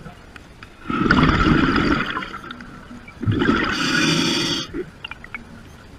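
Two bursts of muffled underwater gurgling and hissing, each about a second long, over a low steady underwater hum: bubbles and water noise picked up through the camera's housing.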